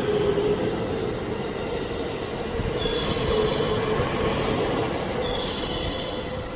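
Electric train running on the track at a station: a steady rumble with a low hum, and a high-pitched wheel squeal twice, about three and five seconds in.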